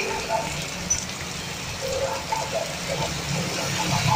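Heavy rain falling on a road and puddles, with motorbikes passing on the wet road; a motorbike's engine rumble grows louder near the end.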